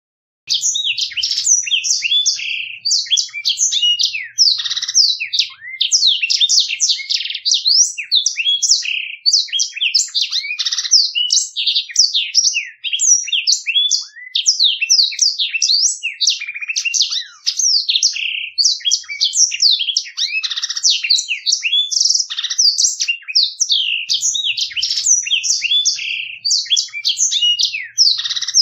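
Black-throated canary (blackthroat) singing a continuous, rapid rolling song of high sweeping notes, starting about half a second in.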